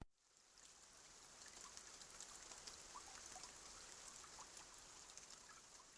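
Faint rain falling, an even hiss with small scattered droplet ticks, fading in about half a second in.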